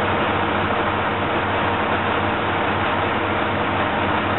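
Diesel railcar's underfloor engine idling steadily under a constant hiss, with a low, even hum that does not change.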